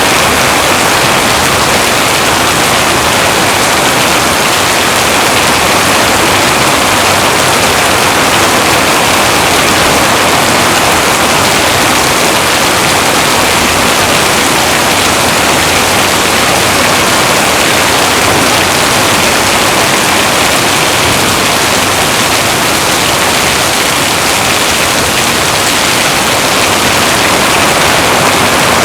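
Heavy rain falling steadily, a dense, even hiss with no breaks or thunderclaps.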